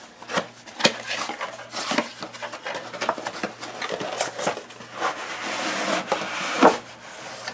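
Cardboard box being opened by hand: a tuck flap pulled free and flaps lifted, with a string of taps, scrapes and cardboard rustling. A few seconds in a longer rustling slide as the foam packing is handled, ending in a louder knock near the end.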